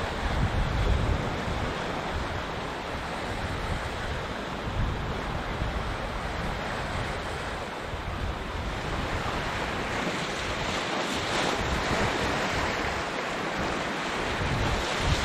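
Sea waves washing on the shore with a steady hiss that swells about two-thirds of the way through. Gusts of wind rumble on the microphone, strongest at the start and near the end.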